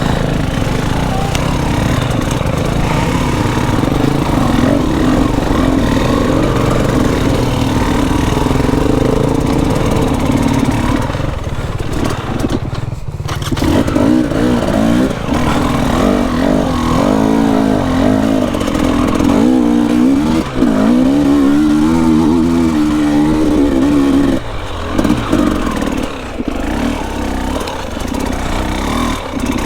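Enduro dirt bike engine running under load on a muddy trail, steady at first, dropping off briefly about twelve seconds in, then revving up and down repeatedly as the throttle is worked, easing near the end.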